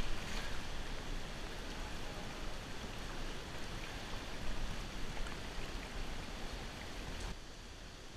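Steady rushing of water from the stream running through the narrow rock canyon. It eases off a little near the end.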